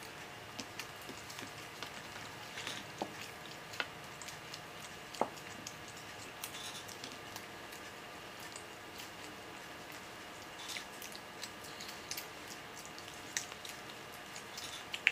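Faint scattered crackles and small clicks of crisp masala dosa being torn and chewed, over a steady low hum.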